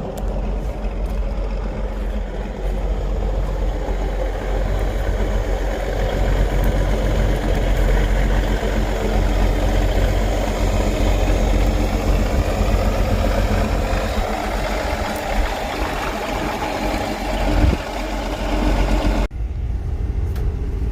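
Farm tractor engine running steadily while under way, with most of its sound low and deep. The sound changes abruptly near the end.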